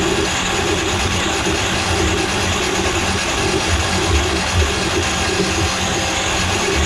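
Electric drum-type drain-cleaning machine running, its spinning cable fed into a grease-clogged kitchen sink drain line. A loud, steady motor and cable whir with a low hum that pulses about twice a second.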